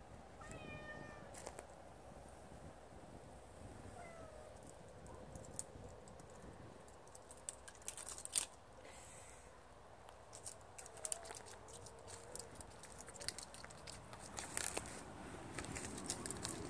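Tortoiseshell cat meowing: a short meow about half a second in and another falling meow about four seconds in, with a faint one later. From about five seconds on there is a run of sharp scratchy clicks.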